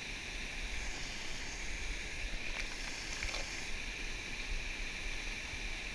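Steady rush of water pouring over a dam spillway, an even hiss with no change.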